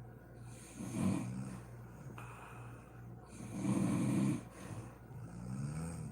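A woman snoring in her sleep: two loud snores about three seconds apart, then a softer snore with a wavering pitch near the end.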